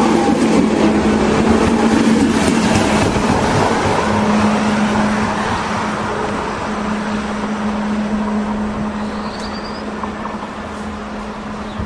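Double-deck electric passenger train passing close and pulling away, its rolling noise fading as it goes, with a steady low hum underneath.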